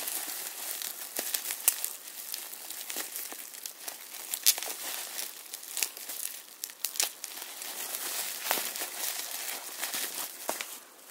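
Plastic wrapping crinkling and crackling with many sharp crackles as a figure part is unwrapped by hand.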